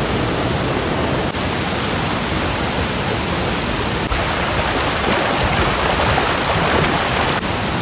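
Waterfall rushing: a steady, dense wash of falling water.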